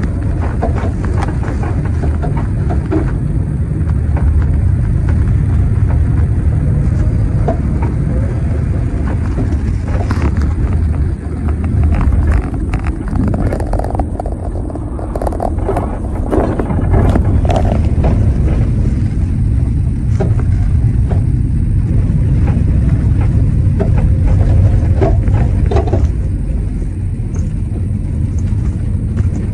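Inside a moving road vehicle: a steady low engine and road rumble with scattered rattles and knocks from the body.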